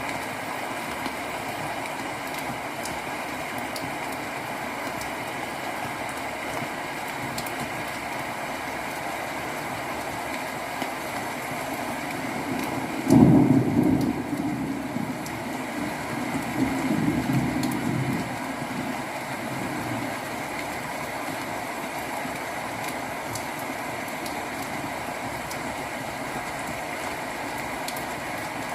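Steady rain with a sudden clap of thunder about halfway through, rumbling on for several seconds before it fades, played back through a Tronsmart Mirtune C2 speaker.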